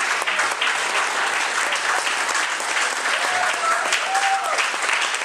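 Group applause: many hands clapping steadily, with a few voices calling out over it.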